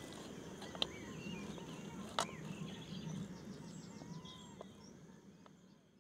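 Birds chirping and trilling over a steady background hiss, with two sharp clicks about one and two seconds in.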